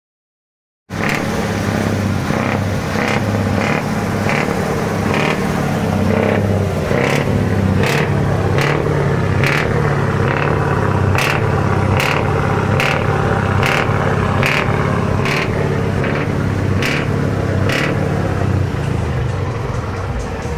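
Truck diesel engine running loud and steady, starting abruptly about a second in, with short sharp clicks roughly once a second over it.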